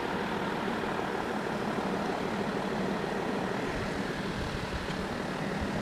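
Level-crossing barrier booms lowering, over a steady mechanical hum.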